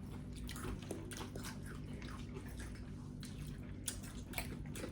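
Faint eating sounds: irregular crackly clicks of someone chewing crunchy chips close by, over a low steady hum.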